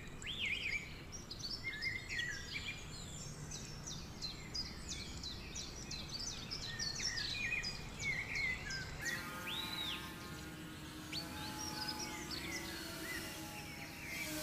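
Many small birds chirping rapidly over a steady low background hum. About nine seconds in the chirps thin out and faint sustained tones join them.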